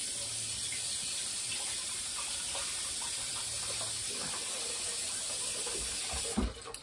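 Kitchen tap running water into the sink in a steady hiss, coming on suddenly and shutting off a little over six seconds in.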